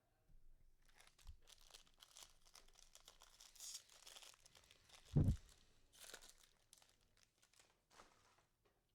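Foil trading-card pack wrapper being torn open and crinkled by hand, with a low thump a little after five seconds in.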